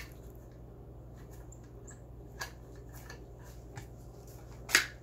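Hand work on a shotgun's wooden buttstock and its long stock-bolt screwdriver: faint clicks and scrapes, a short knock about two and a half seconds in, and a sharp wooden clack near the end as the stock comes free of the action.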